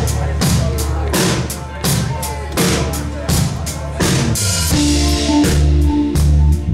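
Live band playing an instrumental passage with no vocals: a drum kit keeps a steady beat of about two hits a second over bass notes that shift in pitch, with a cymbal wash about four seconds in.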